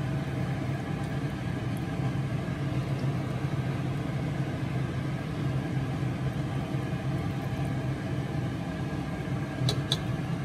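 Steady low machine hum, with two short light clinks near the end as a ladle meets the glass bowl the soup is being served into.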